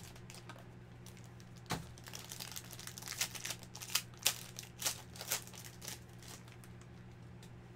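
Silver foil trading-card pack crinkling and tearing as it is pulled open by hand: a run of sharp crackles from about two seconds in that dies away about six seconds in.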